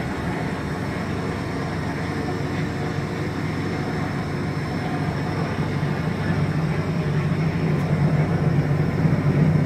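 Steady low electrical hum with fan-like noise from the running off-grid power system, its inverters working under test, growing louder in the second half.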